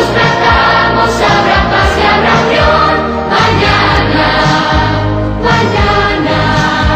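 Music: a choir singing long-held notes over instrumental backing with a steady beat.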